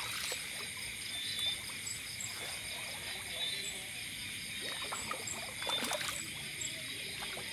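Steady night chorus of insects trilling at several high pitches, with small repeated chirps over it. Water splashes around a bamboo fishing line in a shallow pond, most sharply about six seconds in.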